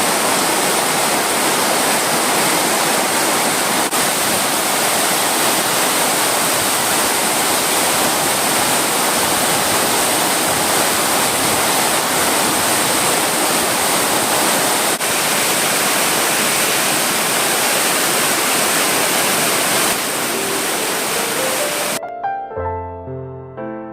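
Steady rushing water, an even hiss with a bright high edge. About 22 seconds in it cuts off sharply and soft piano music begins, its notes climbing at first.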